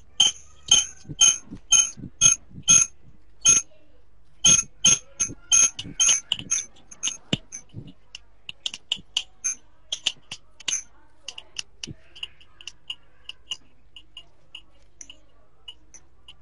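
Scissors snipping paper in a long run of short, sharp cuts. They come several a second and loudest in the first half, with a brief pause about three and a half seconds in, then turn lighter and fainter at about two a second toward the end.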